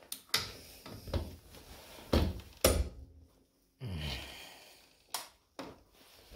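Ratchet and socket clicking and knocking on a scooter's clutch nut as it is strained against a clutch held with a Y tool, the nut not turning. A single breathy sigh of effort about four seconds in.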